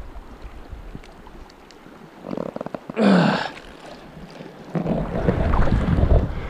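Wind buffeting the microphone over a flowing river, in low rumbling gusts that ease off in the middle and pick up again near the end. A short loud burst of noise about three seconds in.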